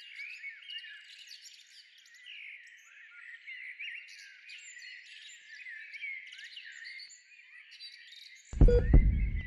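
Many small birds chirping and twittering over one another, thin and high with no low end. About a second before the end, a sudden deep boom hits and dies away over about a second.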